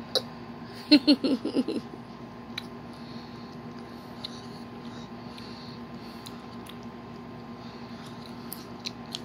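A toddler's short giggle, five or six quick bursts about a second in, followed by a few faint clicks over a low steady hum.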